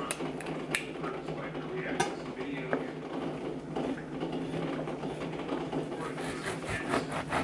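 Kitchen knife clicking and tapping against avocado halves and the pit as they are cut and handled, with several sharp clicks in the first three seconds. A steady low hum lies underneath.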